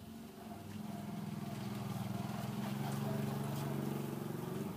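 A motor engine running steadily, getting louder from about a second in and cutting off suddenly near the end.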